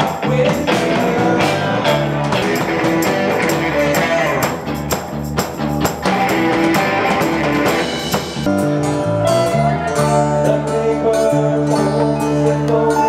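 Live rock band playing: electric guitar, bass and drum kit together. About two-thirds of the way in, the band moves from busy playing onto long held chords.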